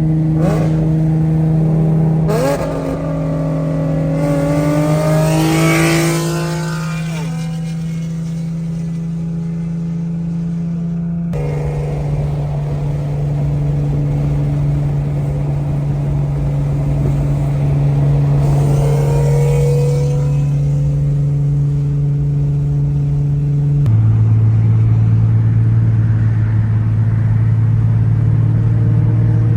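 Nissan 370Z's VQ37VHR V6 through a fully straight-piped exhaust with non-resonated test pipes, extremely loud and raspy. It holds a steady drone, with revs rising a few seconds in and again past the middle, and the drone drops to a lower pitch near the end.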